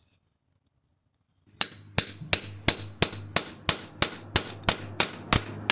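Hammer striking a hammer-type lug crimper, a run of sharp, ringing metal-on-metal blows about three a second, roughly a dozen, starting about a second and a half in, as a copper lug is crimped onto a battery cable.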